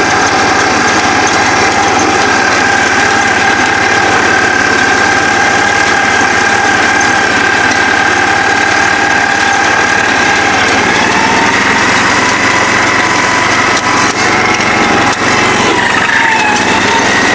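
Kohler K241 10 hp single-cylinder engine of a Ford lawn tractor running steadily while the tractor is driven, its pitch rising a little about eleven seconds in.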